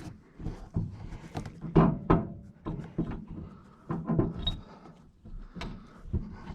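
Irregular clunks and knocks of a farm-implement tire and rim being wrestled onto the hub studs, the loudest two close together about two seconds in.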